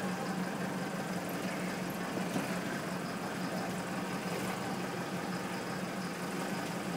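A jeep's engine running steadily at low speed, heard from inside the cabin: a constant low hum over an even wash of driving noise.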